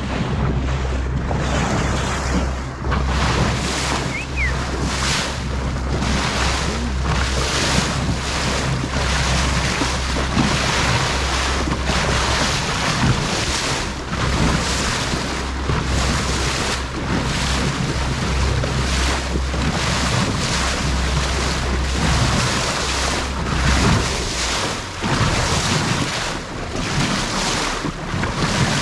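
A boat under way, its bow wave rushing and splashing along the hull in uneven surges, with wind buffeting the microphone. A steady low engine hum sits underneath and drops away about 24 seconds in.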